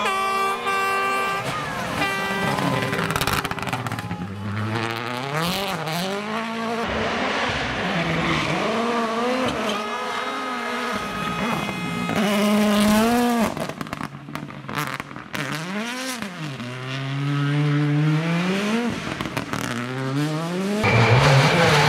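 WRC Rally1 cars, a Hyundai i20 N Rally1 and an M-Sport Ford Puma Rally1, passing at full attack on a gravel stage: their turbocharged engines rev up and drop repeatedly through gear changes and lifts as each car goes by, with gravel spraying from the tyres.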